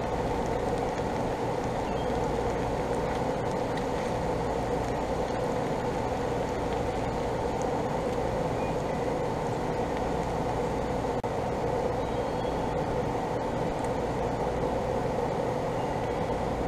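Steady machine drone with a low hum underneath, holding the same level throughout.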